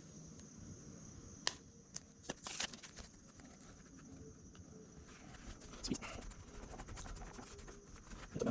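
Faint scattered taps and rustles of hands handling and pressing adhesive foam marine-mat pieces, with a few light clicks.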